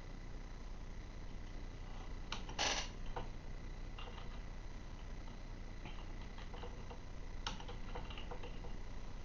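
A person hiccuping: one short, breathy hic about two and a half seconds in. It is followed by faint scattered clicks and taps.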